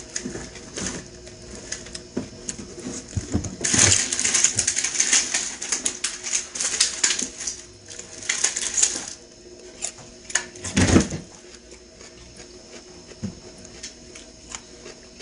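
Close mouth sounds of licking and eating a seasoned pickle: a dense run of wet clicks and smacks through the middle, with one louder thump a little before eleven seconds in.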